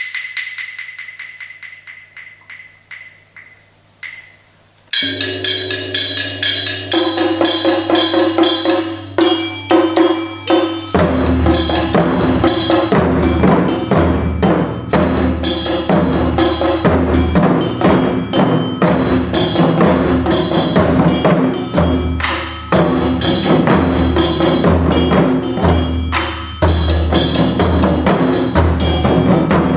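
Modern-style instrumental music built on Japanese taiko drums, with no kakegoe shouts, and rapid woodblock-like clicks. A fading tail of fast clicks gives way about five seconds in to the full arrangement, and a deep, pulsing bass joins near eleven seconds.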